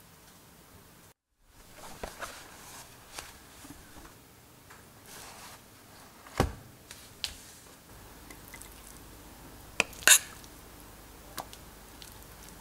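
Spoon handling in a ceramic baking dish, basting honey-soy sauce over baked salmon, with soft wet dripping and small clicks. About six seconds in there is a dull knock as the dish is set down. Near ten seconds a spoon serving rice into a ceramic bowl makes sharp clinks, the loudest sound.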